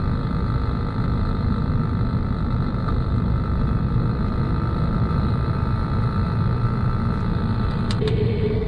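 Chassis noise from the Dodge Dart's failing left front wheel bearing, picked up by a Steelman ChassisEar wireless transmitter and played through the receiver's speaker while driving: a steady rumble with a fast clicking from the bad bearing. Just before the end a click as the receiver is switched to another channel, and a steady tone takes over.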